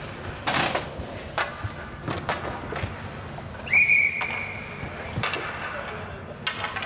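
Ice hockey rink sounds: sharp clacks of sticks and puck against the ice and boards, and a referee's whistle blown once, a steady high tone lasting about a second, a little past halfway.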